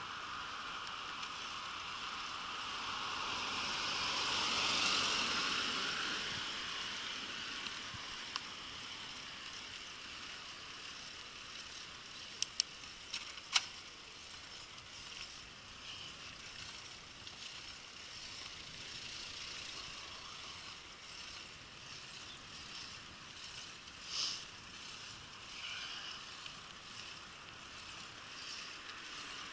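Bicycle riding along a road: a steady rolling and wind hiss. A passing car swells and fades about four to five seconds in, and a few sharp clicks come just before the halfway point.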